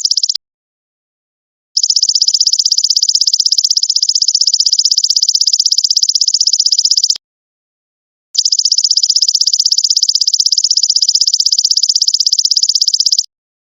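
Golden locust (belalang emas) insect singing: a loud, high-pitched, rapidly pulsing buzzing trill. It stops briefly just after the start, runs for about five seconds, pauses for about a second, then runs about five seconds more before cutting off near the end.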